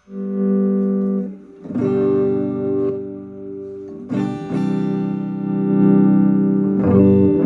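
Epiphone SG Special electric guitar played through a Vox MV50AC amp into a DIY wine-box speaker cabinet: four chords strummed and let ring, the first at the start and the others about 2, 4 and 7 seconds in.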